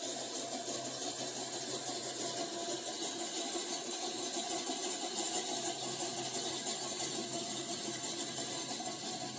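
Car engine running while driving, under wind and road noise coming in through open windows, steady throughout and growing a little louder after a few seconds.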